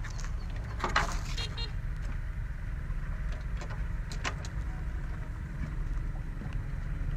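Large Vietnamese kite flutes (sáo diều) droning low and steady, a horn-like hum that sounds much like a train horn. A few light clicks and a short noisy burst about a second in.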